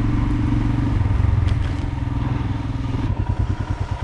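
Motorcycle engine running at steady speed under way, with road and wind noise. About three seconds in, the sound changes abruptly to a choppier, pulsing engine note.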